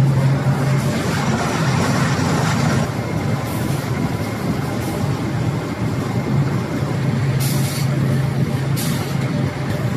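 Corrugated-carton flexo folder gluer running in production: a steady dense mechanical din with a low hum, and a couple of short hisses near the end.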